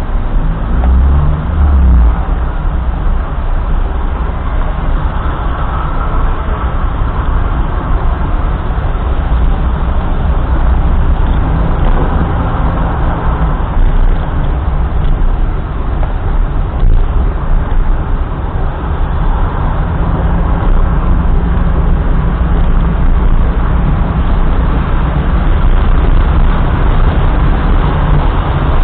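A car driving: steady engine and road noise with a heavy low rumble, swelling and easing slightly now and then.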